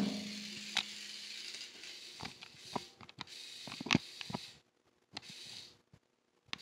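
Scattered light clicks and taps of a small toy car being batted and skidding on a concrete floor by kittens, the sharpest about four seconds in. A brief low hum comes at the very start, and a steady hiss underneath drops away about two-thirds of the way through.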